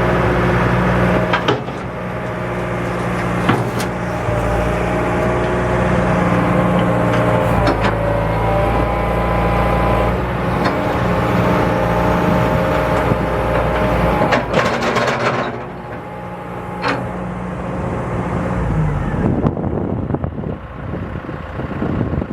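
Diesel engine of a 1999 John Deere 160LC excavator running steadily, with a whine over it and several sharp metal knocks; the engine note drops about fifteen seconds in.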